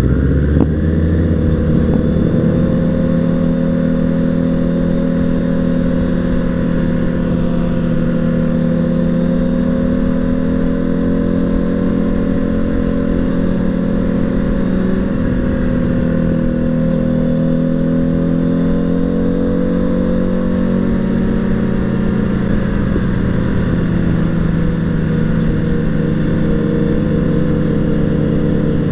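Suzuki Bandit 600's inline-four engine and exhaust running at steady riding revs, the pitch drifting gently up and down and rising right at the end, heard from the rider's seat.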